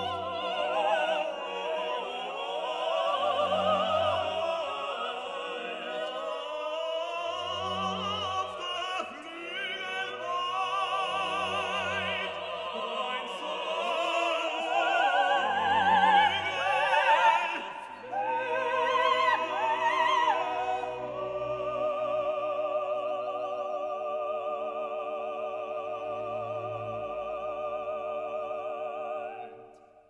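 Background music: operatic singing with wide vibrato over an orchestra, a low note sounding about every four seconds. In the last third it settles into long held chords, then fades out at the very end.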